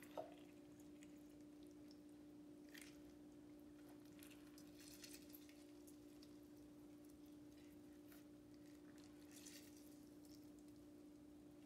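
Near silence: a steady low hum, with a few faint squishes as a lime half is squeezed by hand over a bowl.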